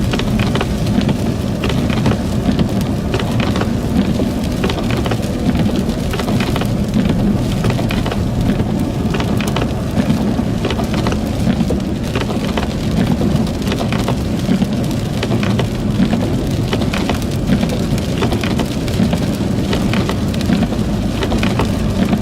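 Sleet and freezing rain hitting a vehicle: many small irregular ticks over a steady low rumble of the vehicle on the road.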